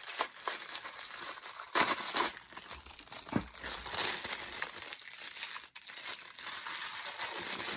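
Action-figure packaging wrap crinkling and rustling as it is pulled out and unwrapped by hand, with a few sharper crackles and rips, the loudest about two seconds in.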